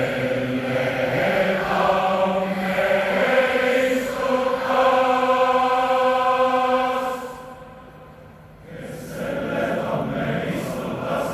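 Massed choir of thousands singing long held chords, with a brief break about eight seconds in before the singing resumes.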